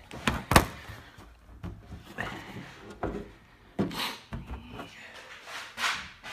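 Knocks, clicks and scraping from a desktop computer case being handled and opened, with the sharpest knock about half a second in.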